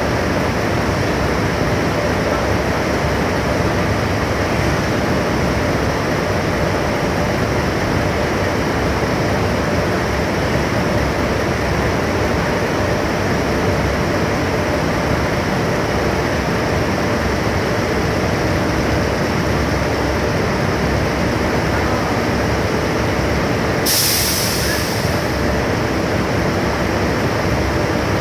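Steady, loud machinery noise, with a short hiss of released compressed air near the end.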